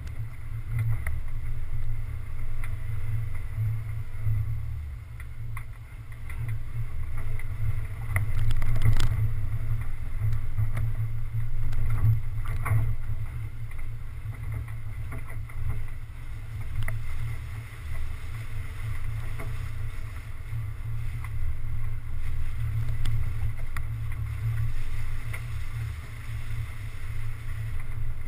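Low, muffled rumble of a 4x4 driving slowly over a dirt forest track, heard from a GoPro in its sealed housing on the bonnet. A couple of sharp knocks come about nine and twelve seconds in as it rolls over bumps.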